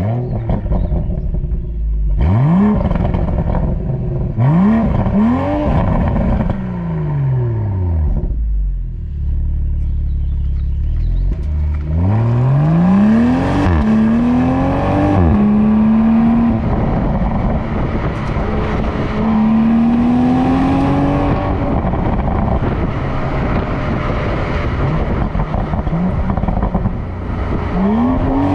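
BMW Z4 M40i's B58 3.0-litre turbocharged inline-six and exhaust being revved, several blips each rising and falling in pitch, then settling to a low rumble. After that it accelerates, the pitch climbing and dropping back at gear changes, then holding and rising again near the end.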